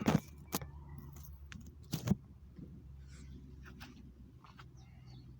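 Handling noise from a recording device being set up and adjusted: a few sharp knocks and clicks, the loudest about two seconds in, then a few faint ticks. A low steady hum runs underneath.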